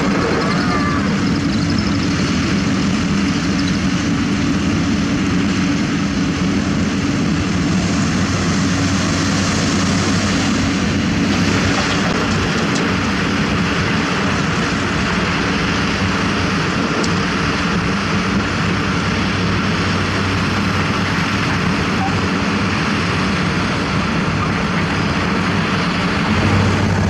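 Diesel engine of heavy earthmoving equipment running steadily: a continuous low drone with a hiss over it. The lowest hum grows stronger near the end.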